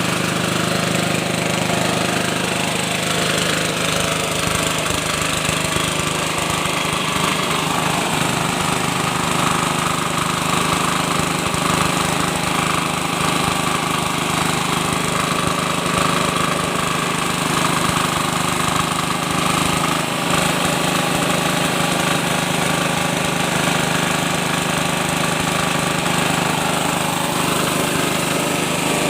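Mini diesel engine running steadily, driving a Pro Quip QMH 350 rice milling machine as it mills rice. The engine and mill make a loud, continuous mechanical noise with no change in speed.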